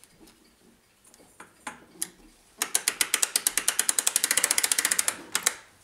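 Ratchet click of an American-style mainspring winder clicking rapidly, about a dozen clicks a second for some three seconds, as a bracket clock's mainspring is wound down inside the winder's steel hoop. A few faint clicks come before the run.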